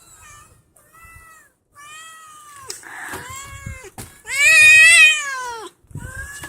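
Domestic cats yowling at each other in a fight standoff: a run of long, wavering, drawn-out calls, the loudest about four seconds in and lasting about a second and a half.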